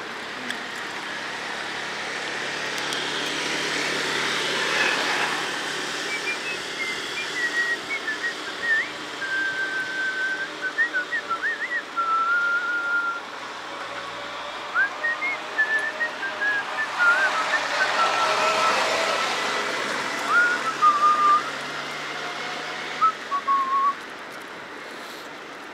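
A person whistling a tune, a string of held notes with short slides between them. Underneath is a rushing noise that swells twice.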